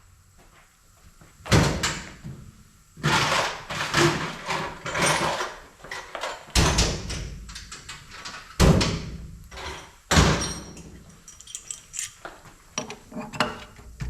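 Heavy metal clunks and knocks from the cylinder head and tools being handled while a valve guide is checked for looseness. There are about five loud knocks, a cluster of clattering after the first, and lighter clicks near the end.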